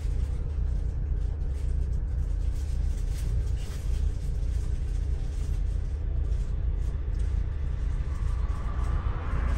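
Double-decker bus heard from on board: a steady low rumble of engine and road noise as it drives. A faint high whine comes in near the end.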